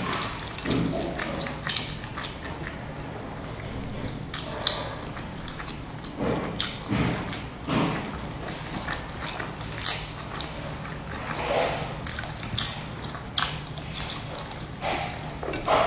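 Close-up eating sounds of a person chewing and biting into large dumplings, with many short wet mouth clicks and smacks, over a faint steady low hum.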